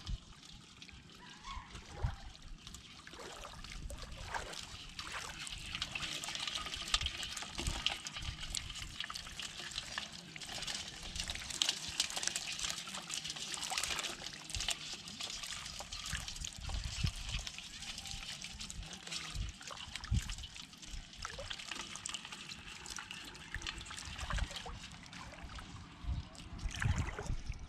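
Shallow water trickling and splashing while a bamboo fish trap and a bowl of live small fish and crabs are handled. Many small ticks and splashes run through it.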